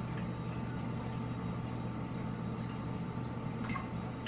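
Steady low mechanical hum in the room, with a faint clink, likely cutlery, about three and a half seconds in.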